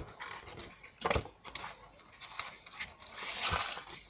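A small cardboard box being handled and opened: light rustles and clicks of the card, a sharp tap about a second in, and a longer sliding scrape near the end as the inner tray is pulled out of the sleeve.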